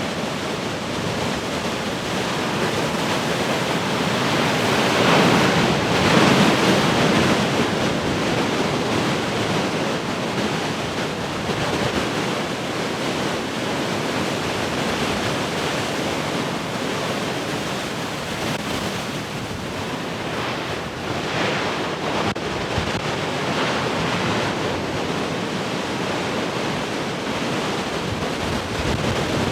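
Heavy ocean surf: large waves breaking and washing in a continuous roar, with swells as bigger waves break about five seconds in and again around twenty seconds. Wind buffets the microphone.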